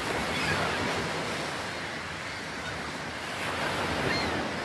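Ocean surf: a steady wash of waves that swells slightly about half a second in and again near four seconds.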